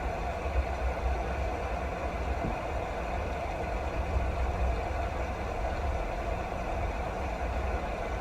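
Steady rain falling, an even hiss with a deep low rumble underneath and no change in strength.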